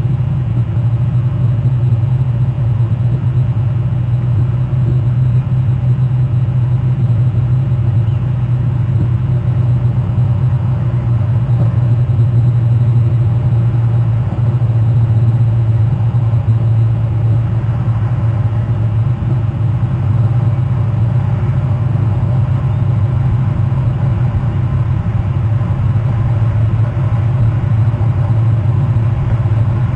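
Steady low rumble with a faint hiss above it, unbroken and unchanging throughout.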